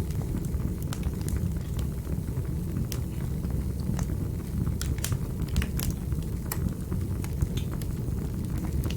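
Wood fire burning in a fireplace: a steady low rumble of the flames with irregular sharp crackles and pops several times a second.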